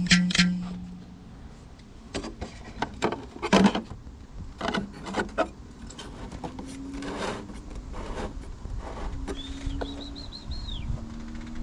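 Scattered knocks and clicks of work being handled, with a bird's short warbling call about ten seconds in and an engine sound slowly rising in pitch toward the end.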